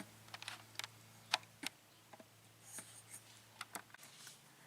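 Faint, scattered small clicks and light taps from handling a lock and its metal picks, with a few soft rustles, over a low hum that stops about four seconds in.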